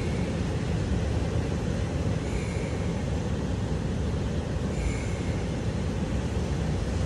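Ocean surf and wind buffeting the microphone: a steady, dense low rumble with no breaks.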